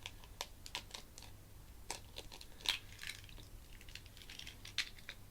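Faint, scattered small clicks and light crinkling of an eggshell being pulled apart and handled as an egg is broken into a bowl.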